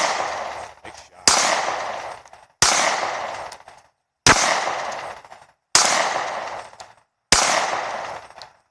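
Five gunshots fired one at a time at a slow, even pace, about one every second and a half, each followed by a long echo that dies away.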